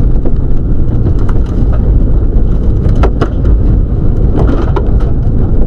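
Subaru Legacy rally car at speed on a wet gravel stage, heard from inside the cabin: loud, steady engine and road noise, with a few sharp knocks about three seconds in and again a little past four seconds.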